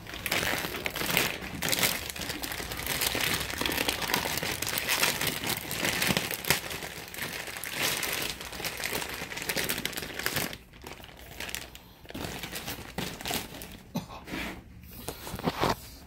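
Packing material crinkling and rustling as a box is unpacked by hand. The crinkling is dense for about ten seconds, then thins to scattered crackles.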